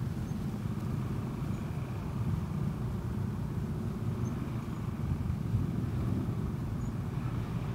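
Steady low rumble of a vehicle engine and road traffic while creeping along in a traffic jam.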